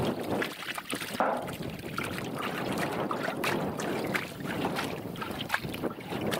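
Water and a load of crucian carp being poured out of a metal tub onto a wire grate, splashing and slapping in a dense, continuous rush with many small knocks.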